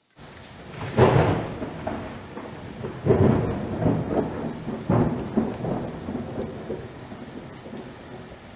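Outro sound effect of thunder and rain: a steady rain-like hiss with three heavy rolling rumbles about two seconds apart, the first the loudest, dying away toward the end.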